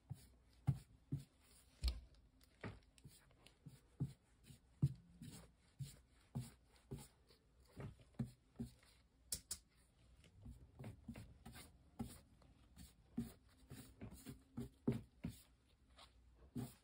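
Wide flat bristle brush scrubbing and dabbing paint onto a canvas: dry, scratchy strokes with irregular soft knocks, roughly one or two a second.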